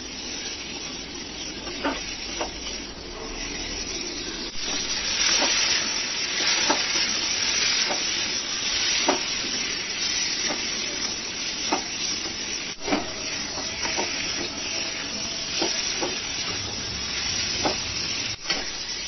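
Marinated chicken sizzling in a metal kadai of mustard oil and spice paste, stirred with a metal spatula that scrapes and knocks against the pan in short strokes every second or so. The sizzle grows louder about five seconds in.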